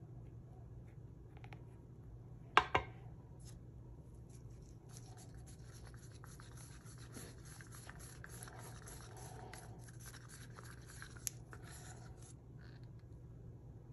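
Wooden craft stick scraping dry mica powder around the inside of a small disposable cup: a faint, steady scratching from about four seconds in until near the end. A sharp double knock comes about two and a half seconds in.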